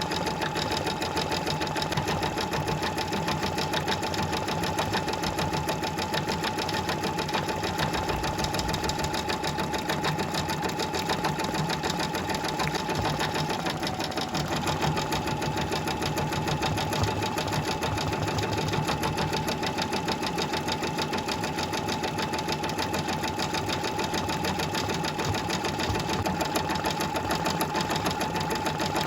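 Sewing machine stitching continuously at a steady speed: a rapid, even run of needle strokes over a steady motor whine, which dips slightly in pitch for a moment about halfway through.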